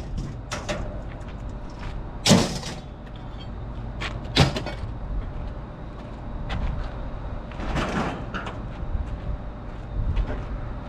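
Scrap metal being handled in and out of a pickup bed: two sharp metallic bangs about two seconds apart, then a longer clattering scrape near the end, over a steady low rumble.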